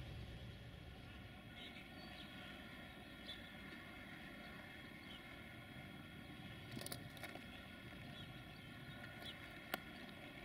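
Faint outdoor ambience with a steady mechanical hum made of several level tones. Short bird chirps come through a few times, and there are a few sharp clicks in the second half, the loudest near the end.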